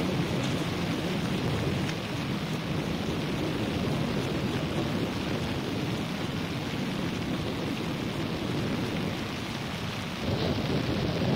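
Wind buffeting the microphone: a steady rumbling noise that swells again in gusts near the end.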